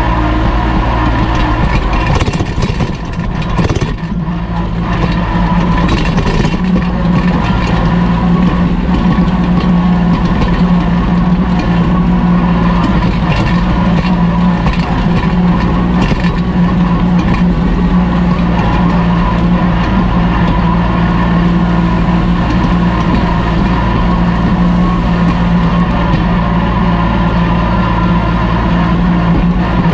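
Kubota L2501 tractor's three-cylinder diesel engine running steadily while pulling a disc harrow through the ground. The engine note dips briefly about three seconds in, then settles back into a steady drone.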